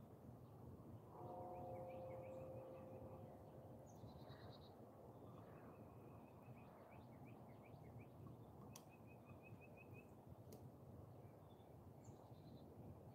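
Quiet outdoor ambience with birds chirping: rapid runs of short chirps and trills. A faint held tone sounds for a couple of seconds about a second in, and two faint clicks come later.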